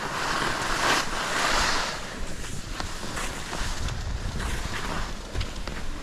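Skis sliding and scraping over tracked-up snow, with wind buffeting the GoPro's microphone. A loud hissing rush for the first two seconds, then a lower rumble with a few small clicks.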